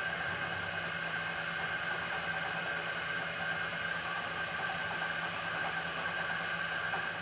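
Vertical milling machine running, its spindle drilling into a steel bar with a twist drill: a steady machine hum with a high steady whine over it.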